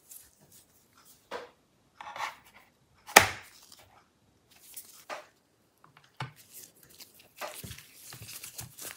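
Handling noise of a laptop on a wooden desk: scattered knocks and taps, the loudest about three seconds in. Near the end comes a run of faint scraping and ticking as a JIS #1 screwdriver turns in a bottom-cover screw.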